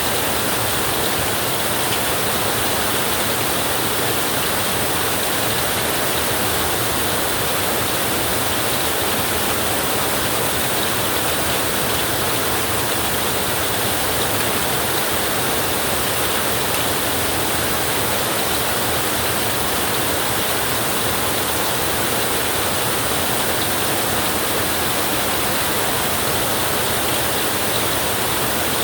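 A flowing river rushing steadily and evenly, with no breaks or changes.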